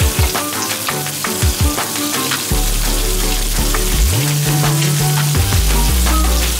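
Bacon sizzling as it fries in a ridged grill pan, under background music with a regular drum beat and a deep bass line that comes in about halfway through.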